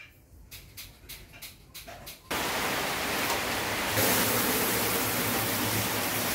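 A few faint knocks, then a little over two seconds in a faucet is opened and water streams steadily into a plastic water jug: a loud, even rush that grows slightly louder about four seconds in.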